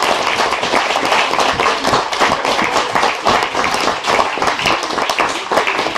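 Audience applauding: many hands clapping irregularly.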